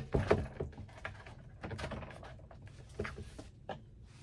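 Scattered light clicks and knocks as the legs of a Cricut Venture docking station table are slid into place and its parts are handled.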